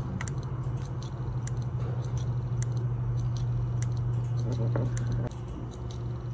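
Seagate ST500DM002 3.5-inch desktop hard drive running with a steady low hum while its heads click and knock repeatedly against the platters. This head knocking (敲盘) is the sign of the read/write heads failing to read the disk.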